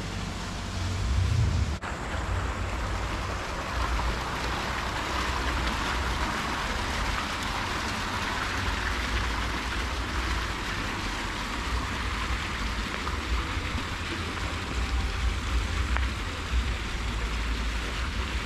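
Steady splashing and rushing of water from small bubbling fountains in a pond, with a low, unsteady rumble underneath.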